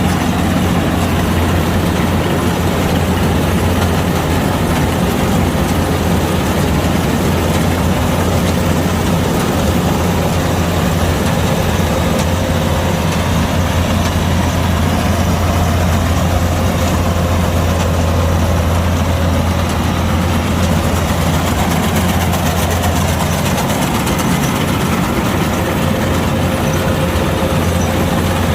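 Kubota DC-105X combine harvester's diesel engine running steadily, a loud, even low drone that holds the same level throughout.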